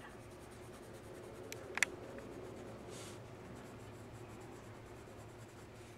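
Faint scratching of a yellow coloured pencil stroked lightly across drawing paper, with two small sharp clicks a little under two seconds in and a low steady hum underneath.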